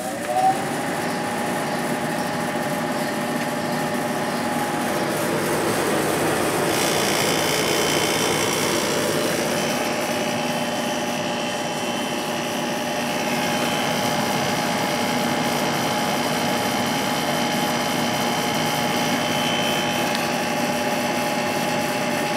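1997 Sharp 8,500 BTU room air conditioner running just after being switched on. Its fan motor comes up to speed within the first second, then settles into a steady hum with a couple of steady tones. About seven seconds in, a higher whine joins.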